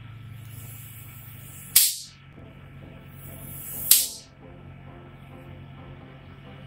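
Two short bursts from an aerosol spray can, about two seconds apart, each a sharp hiss that fades quickly, over a steady low hum.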